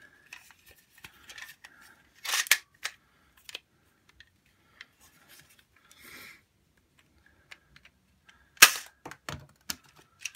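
Cheap spring-powered foam-dart toy blaster being handled, with a short scraping rasp about two seconds in, then one sharp snap as it fires, followed by a few lighter knocks.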